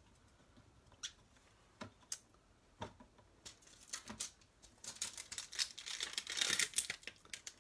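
A few light clicks and taps, then from about three and a half seconds in, clear plastic stamp packaging crinkling as it is handled, loudest near the end.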